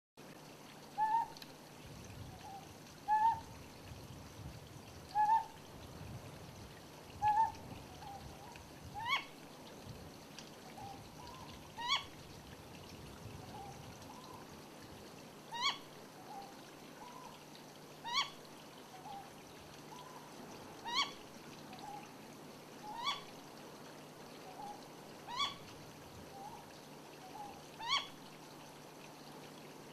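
Ryukyu scops owl calling. First comes a low two-note hoot, the male-type 'koho-koho' call, given four times about two seconds apart. From about nine seconds in, the owl switches to single upward-sliding 'kyo' notes, the call usually taken for the female's, every two to three seconds, with fainter low notes in between.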